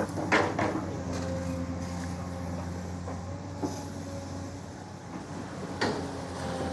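Excavator's diesel engine running steadily, with a few sharp knocks from the machine working: two just after the start, one near the middle and one near the end.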